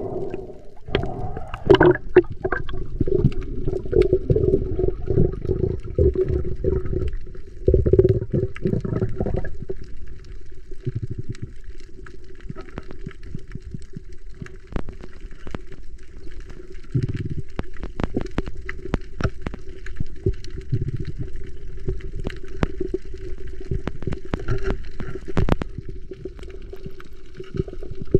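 Underwater sound over a coral reef, heard through the camera's housing: a steady hum under many scattered sharp clicks, with heavier muffled sloshing and bubbling for the first several seconds.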